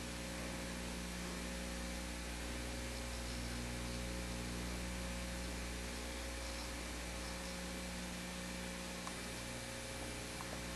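Steady electrical mains hum with an even hiss underneath, the background noise of the recording itself; no turkey calls or other clear sounds stand out.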